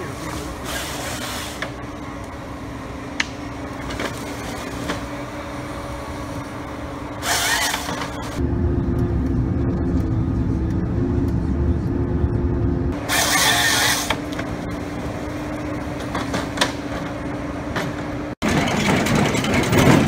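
Timber harvester's engine running with a steady drone, with a couple of short loud hissing bursts and, midway, a heavier low rumble lasting several seconds. After a sudden break near the end comes a short stretch of louder, broader machinery noise.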